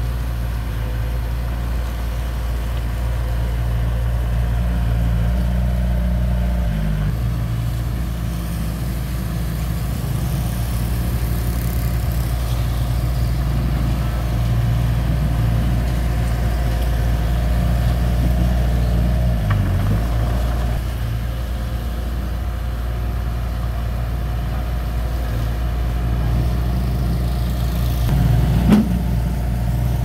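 Diesel engine of a Komatsu D31P bulldozer running steadily. Its pitch dips briefly twice, and there is a sharp knock near the end.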